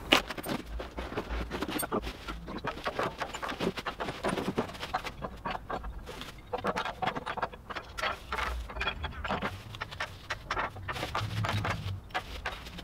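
Unpacking sounds: plastic bags and cardboard packaging rustling and crinkling, with frequent short clicks and knocks as a manual tube bender and its metal bending dies are taken out and set down on a bench.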